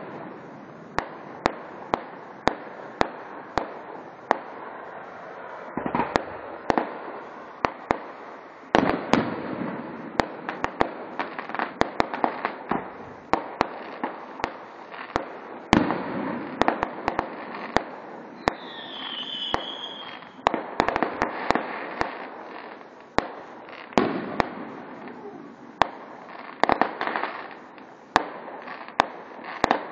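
Aerial fireworks display: a steady run of sharp bangs from shells bursting in the sky, about one or two a second, over a continuous rumbling wash of noise that swells and fades.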